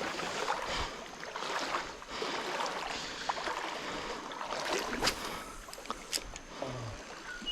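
Creek water rushing and sloshing steadily, broken by a few short clicks.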